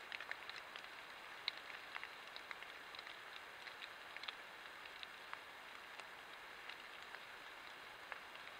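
Faint steady hiss with scattered light, irregular ticks of water drops pattering on leaves and forest litter.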